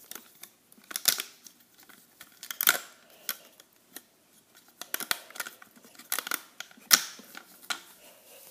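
Irregular clicks and snaps as rubber bands are pulled slowly off the plastic pegs of a Rainbow Loom, with fingers rubbing the loom close to the microphone.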